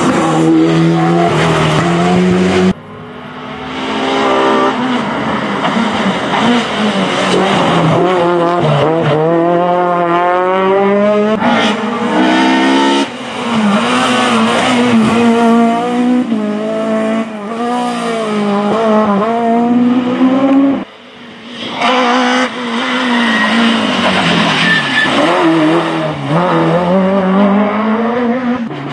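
Rally cars at full throttle on a stage, engines revving hard and falling back through gear changes as they pass. The sound cuts abruptly from one car to the next a couple of times.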